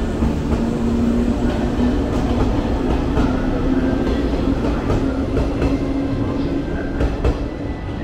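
Yellow JR West commuter electric train pulling out of the platform and gathering speed: its traction motors hum in a tone that rises slowly over about six seconds, over a steady rumble of wheels on rail with occasional clicks at the rail joints.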